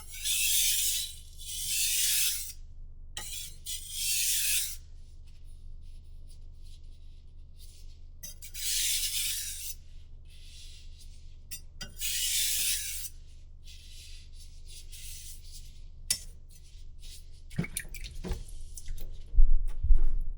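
Kitchen knife blade stroked across a wet whetstone: a series of hissing, scraping strokes about a second long with short pauses between them, then a few knocks and thuds near the end.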